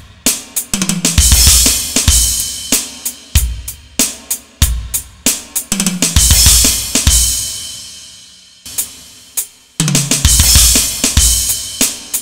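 Electronic drum kit playing a steady beat broken by half-bar drum fills: three times a quick run down the toms leads into a crash cymbal with bass drum, the cymbal ringing on for a second or more.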